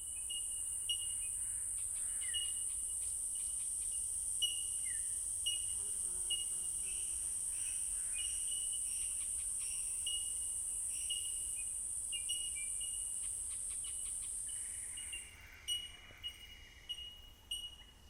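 Night insects calling: a steady, high-pitched trill that cuts off about 15 seconds in, with short higher chirps repeating over and over throughout.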